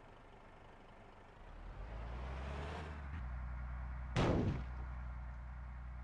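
A bus engine runs with a steady low rumble that comes up about a second and a half in. About four seconds in, a single sudden loud burst of noise dies away within half a second. No telolet horn melody sounds.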